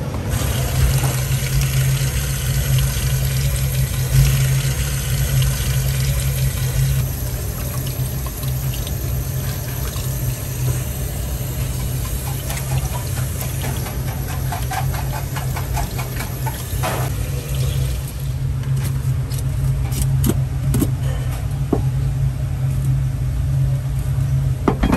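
Tap water running and splashing in a stainless steel sink as squid are rinsed by hand, over a steady low hum. Toward the end come a few sharp knocks as fish are gutted with a cleaver on a plastic cutting board.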